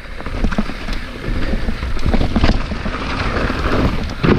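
Mountain bike rattling down a rough, technical trail: tyres running over dirt, roots and rocks with many small knocks and a harder hit near the end, and wind on the microphone.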